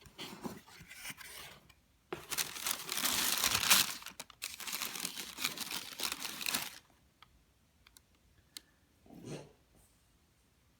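Paper and cardboard packaging rustling and crinkling as a shoebox is opened and unpacked, loudest for several seconds in the middle, followed by a few light clicks and a soft thump near the end.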